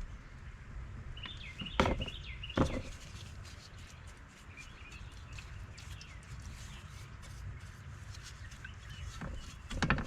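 Small birds chirping in the background, with sharp knocks about two seconds in, again shortly after, and near the end.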